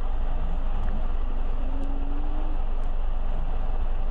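Land Rover trials vehicle engine running as it drives across wet sand and onto a steep bank: a steady low rumble, with a faint engine note rising briefly around the middle.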